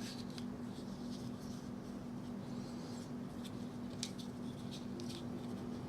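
Scattered light clicks and taps of a metal bicycle multitool being handled, its two slot-in halves being worked apart, over a steady low hum.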